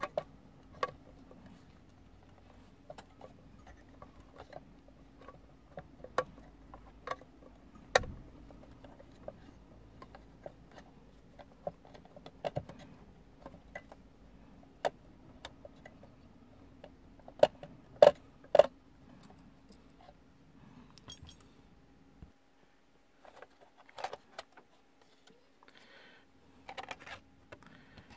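Small metal clicks and clinks of a screwdriver prying at and handling the sheet-metal casing of an Alpine car stereo, with a few sharper knocks near the middle. A faint low hum in the background stops about three quarters of the way through.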